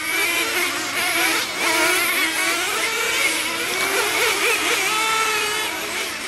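Several engine-powered RC race cars running, their small nitro engines buzzing at different pitches, each rising and falling in speed as they accelerate and brake around the track.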